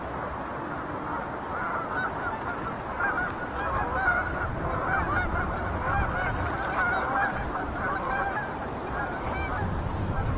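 A flock of Canada geese honking, many short calls overlapping each other, growing busier from about two seconds in.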